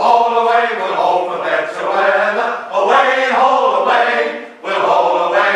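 Male shanty choir singing a sea shanty unaccompanied, in phrases of long held notes with short breaks between them.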